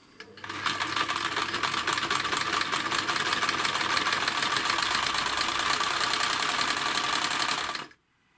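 Necchi 559 household sewing machine running at speed, test-stitching fabric after its hook has been adjusted, with a rapid, even clatter of stitches. It starts about half a second in and stops abruptly near the end.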